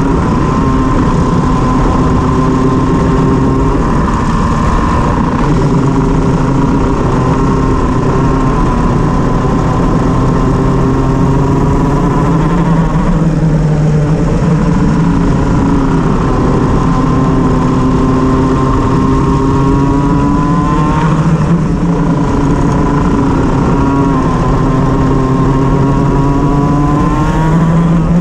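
Shifter kart's two-stroke engine running with a misfire, its pitch rising and falling as it revs. There are quick climbs in pitch about three-quarters of the way through and again near the end.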